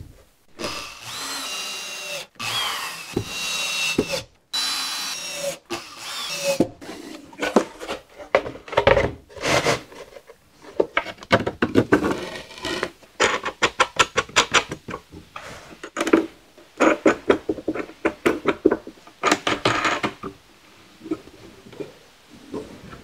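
Cordless drill-driver driving screws into a wooden board in a few short runs, its motor whining steadily. Then a long series of short knocks and clatters as wooden boards are handled and set in place on the bench.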